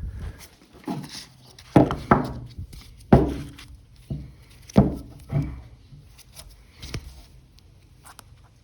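A TPU phone-case frame being pried and pulled off its aluminium shell: a series of short squeaks, each with a thud of handling, about a second or two apart.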